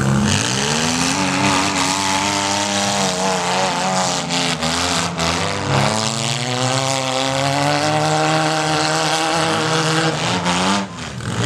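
Several small cars' engines revving, rising and falling in pitch as the mini cars drive and ram in a demolition derby, with a few sharp knocks of impacts about halfway through.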